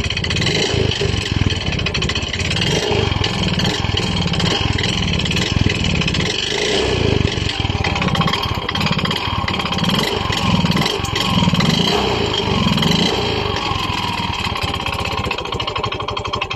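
Yamaha Mio i 125 scooter's single-cylinder engine running with a loud abnormal engine noise, which the mechanic says could be piston slap or a worn connecting rod, since the two sound alike.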